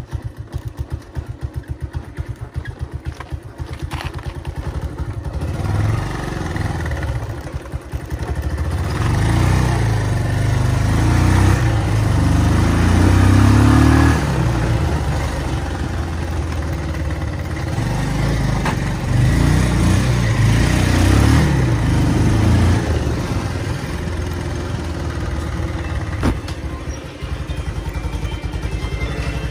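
Motorcycle engine heard from the rider's helmet. It pulses at low speed for the first few seconds, gets louder as the bike picks up speed around the middle, and drops back to a lower, steadier note near the end.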